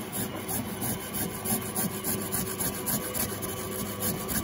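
Carrots being grated on a hand grater: quick, even rasping strokes, about four a second, over the steady hum of a stand mixer beating eggs and sugar.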